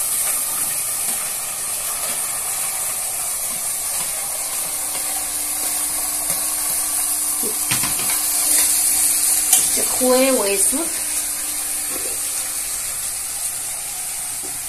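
Chopped onion frying in hot oil with a steady sizzle. It is being stirred, and the utensil knocks the pot a few times around the middle.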